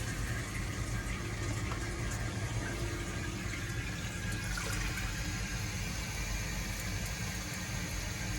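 Toilet tank refilling through its fill valve once the supply is turned back on: a steady rush of water running in.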